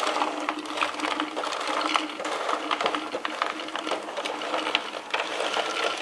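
Frozen aronia berries clattering in a dense, irregular rattle as they are poured from a metal tray into a glass jar.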